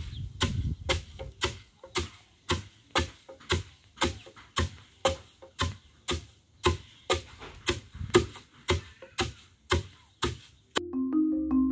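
Two wooden pestles taking turns pounding moistened grain in a wooden mortar (kinu), making dull strikes at about two to three a second. Near the end the pounding stops and background music with marimba-like notes begins.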